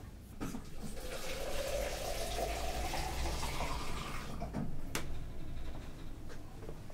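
Water running into a container, its pitch slowly rising as it fills, for about four seconds, followed by a single sharp click.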